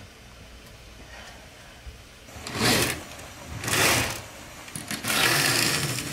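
Floor-length curtains drawn open along their rail in three pulls, each a loud swish of fabric and runners sliding along the track, the last the longest.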